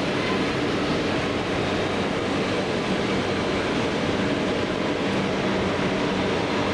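Steady hum of railway station platform ambience: an even mechanical noise with faint low steady tones, and no train moving.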